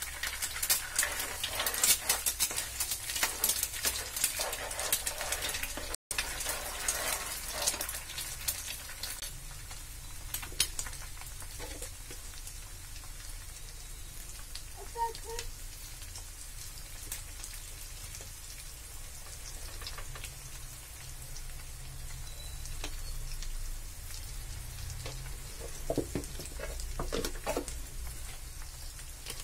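Eggs frying in hot oil in a pan with onion, green chilli and garlic: a loud, dense crackling sizzle at first that settles into a quieter steady sizzle. A few short knocks near the end.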